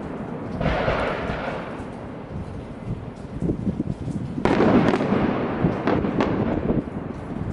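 Fireworks bursting overhead: a boom about half a second in, then a louder burst about four and a half seconds in, followed by a few sharp cracks.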